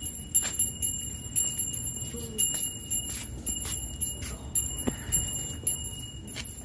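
Small jingle bells jingling in an uneven rhythm, about two shakes a second.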